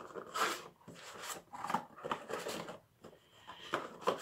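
Small numbered cardboard game boxes being handled in a board-game box tray: irregular rubbing and scraping with light knocks as they are lifted, turned and set back down.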